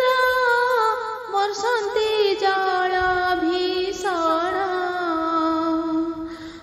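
A woman singing solo, stretching a melodic phrase over long held vowels with wavering ornamental turns and a few steps in pitch, in the manner of a sung Odia poem recitation.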